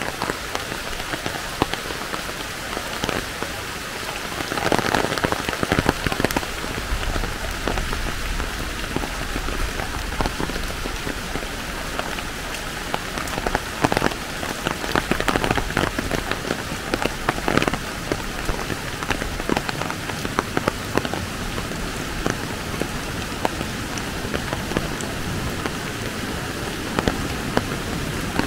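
Steady rain falling, with many individual drops ticking sharply on a nearby surface. A low rumble runs underneath from several seconds in.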